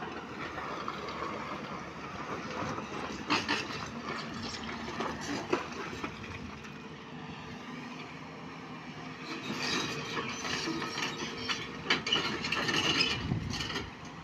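JCB tracked excavator running while its bucket digs wet rock and mud and swings it over a dump truck, with stones knocking and clattering at intervals, most thickly in the last few seconds.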